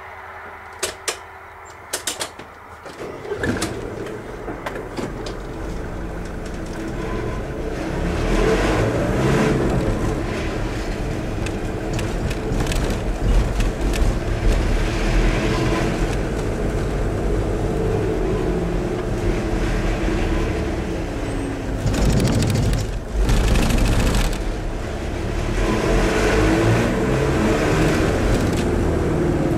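Car pulling away from standstill and accelerating through the gears, heard from inside the cabin: a few clicks in the first couple of seconds, then engine and road noise rising with pitch climbing and dropping at each gear change. About 22 seconds in, a louder rattling rumble lasts about two seconds as the wheels cross a cattle grid.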